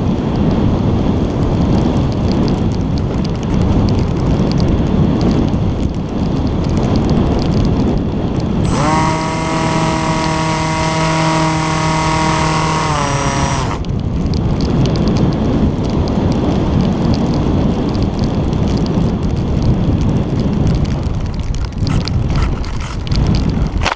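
Wind rushing over the nose-mounted camera of a Bixler 2 RC foam plane in flight. For about five seconds in the middle, the plane's electric motor and propeller whine at one steady pitch, then the pitch drops and the whine cuts off. Near the end there are a few bumps and scrapes as the plane comes down on sand.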